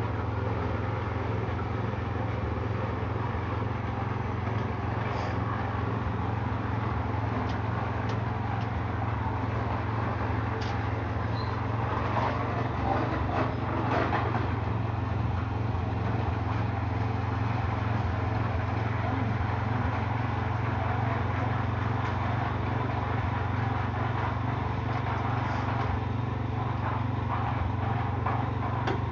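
An engine running steadily with an even, low drone, with a few light clatters and knocks about halfway through.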